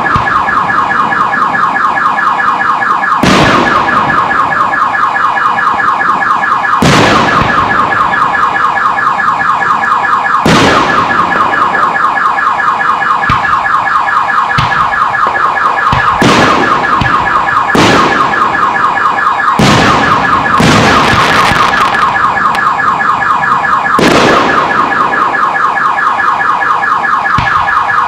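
A car alarm sounds throughout with a fast, warbling electronic tone, while aerial firework shells burst overhead about eight times, each a loud bang that echoes briefly.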